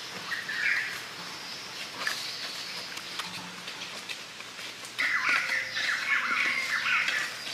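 Wild birds calling: a short run of quick chirps near the start and a louder, busier run of chirps from about five seconds in, over a steady high drone of insects. A few faint knocks of a stick working the soil.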